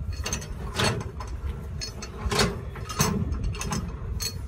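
Semi-trailer landing-gear crank handle being unhooked and turned: a string of irregular metal clanks and ratcheting clicks over a low steady rumble.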